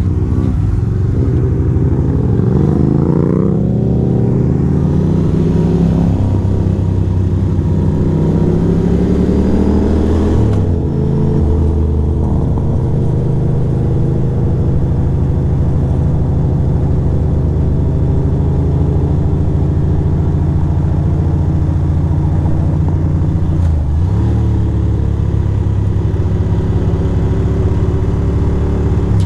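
2006 Ducati Monster 620's air-cooled L-twin engine under way on the road. The engine note rises as the bike accelerates, dipping briefly about four and ten seconds in as it shifts gear, then holds a steady cruise with one more short dip about twenty-four seconds in.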